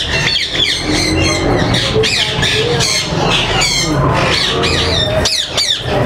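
Many caged parakeets squawking, shrill calls overlapping one after another over a low steady hum.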